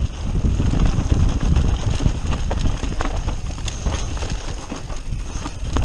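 Mountain bike descending a rough, leaf-covered dirt trail: the bike rattles and knocks irregularly over roots and stones, with tyre noise and a heavy rumble of wind buffeting the camera microphone.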